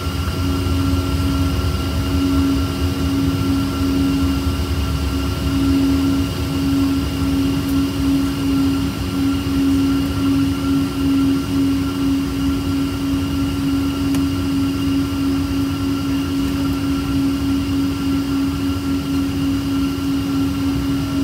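Boeing 777-200 heard from inside the cabin while taxiing after landing: a steady jet-engine drone with a gently pulsing hum and a low rumble, the rumble heaviest in the first few seconds.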